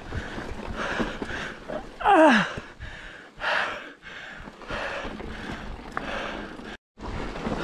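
A mountain biker breathing hard in quick, even puffs about twice a second, with a short voiced grunt falling in pitch about two seconds in. The sound cuts out for a moment near the end.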